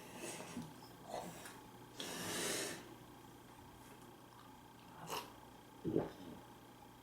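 A person's breathing and eating noises: a few short clicks, a long noisy breath about two seconds in, and a dull knock near the end.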